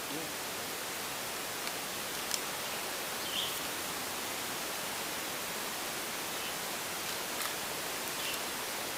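Steady outdoor background hiss with no distinct source, broken by a few faint, brief ticks.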